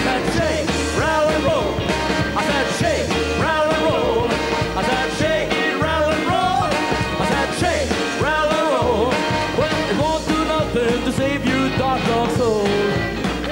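Live rock'n'roll band playing: drums and upright bass keep a driving beat under bending, gliding lead lines, in a stretch with no lyrics sung.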